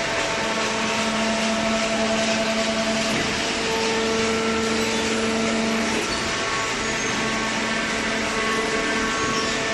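Hydraulic cardboard baler running: a steady motor-and-pump hum over a noisy whir, its tone shifting about three seconds in and again about six seconds in.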